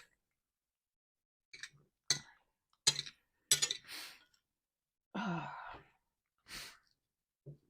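A woman sighs, a voiced breath falling in pitch, about five seconds in, followed by a breathy exhale. Before it come several short, sharp mouth and eating noises.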